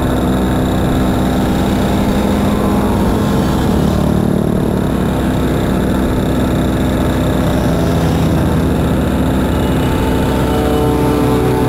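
Small moped engine running steadily at low speed, heard from on board the moped, with the engines of the mopeds and motorcycles riding close behind mixed in.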